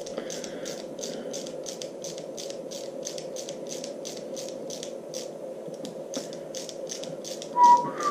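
Screwdriver driving an M5 bolt through a V-groove mini wheel into a 3D-printed plastic block, giving a steady series of small clicks about three or four a second. A brief louder sound comes near the end.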